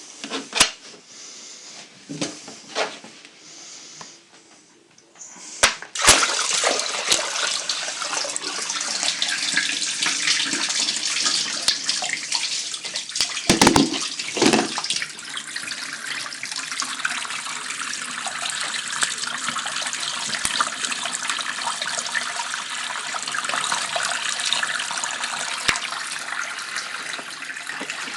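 Water running steadily through an ebb-and-flow hydroponic system with a siphon, the flow starting suddenly about six seconds in after a few knocks. A cluster of knocks comes a little before halfway.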